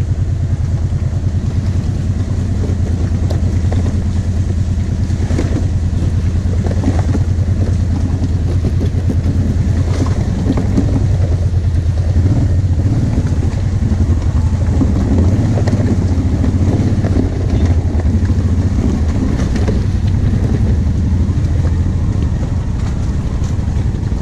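Quad bike (ATV) engine running steadily at low throttle while riding a rutted mud trail, with a few knocks from the machine jolting over the ruts.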